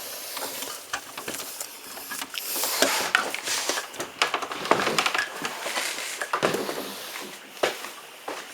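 Irregular clicks, knocks and rustling close to the microphone: handling noise as the camera is moved and set up.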